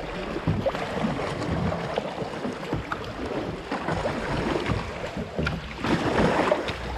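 Steady rush of river water with light splashes, growing louder near the end.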